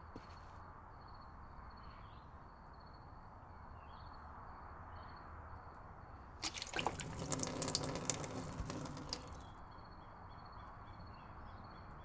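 Gasoline splashing out of a plastic gas can onto a microwave oven, a dense pour lasting about three seconds from a little past the middle and then stopping abruptly.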